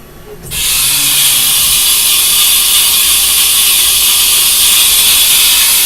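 A 1994 Haas VF-2 vertical machining center giving off a loud, steady hiss that starts abruptly about half a second in and cuts off suddenly near the end.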